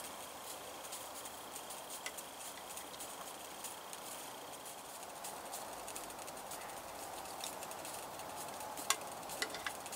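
Steady faint background hiss, with a few light metal clicks near the end from a spoon against a tin can of soup.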